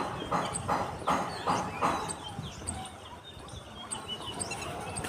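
Small birds chirping in the background, with a run of about five short rustling bursts in the first two seconds.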